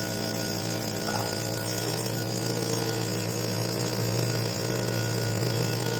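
Stihl BG 56 C leaf blower's small two-stroke engine running at a steady speed while its new carburettor's mixture screws are being tuned.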